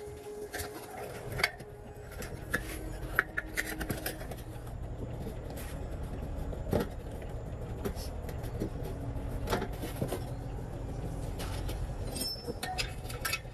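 Scattered metal clinks and knocks from hand work on metal parts, over a low steady rumble.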